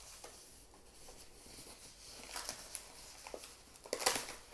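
Packaging being handled while a TV box is unpacked: faint rustling and small clicks, with a louder crinkling rustle about four seconds in.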